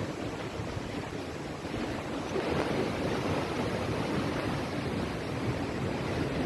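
Steady noise of sea waves and wind, with no distinct events, swelling a little about two and a half seconds in.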